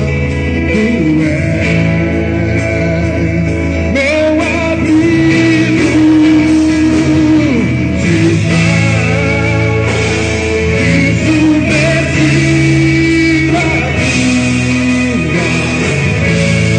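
Christian worship song: a male voice sings long held notes over sustained band accompaniment.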